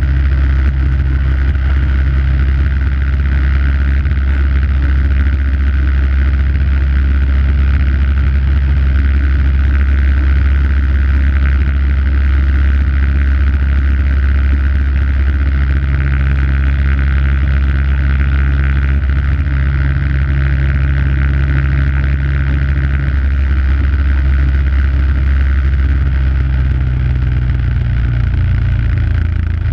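MTD snowblower's 5 hp single-cylinder engine running steadily under load, throwing snow.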